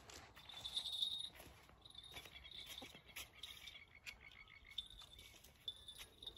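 Faint chorus of frogs and insects calling from the lakeshore: a high trill that comes and goes, and a short run of rapid pulsing calls about two seconds in.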